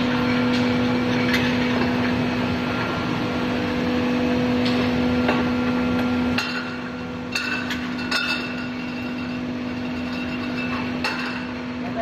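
Automatic olive-oil filling and capping machine running: a steady motor hum, weaker after about six seconds, with glass bottles clinking and scattered sharp mechanical clicks and knocks.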